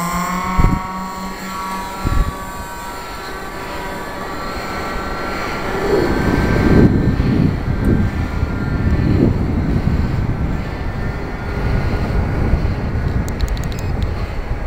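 The twin ASP .52 two-stroke glow engines of a radio-controlled SPAD twin at full throttle. Their whine rises in pitch at the start, then carries on faintly as the plane flies off. Two knocks of handling come in the first couple of seconds, and wind rumbles on the microphone from about halfway.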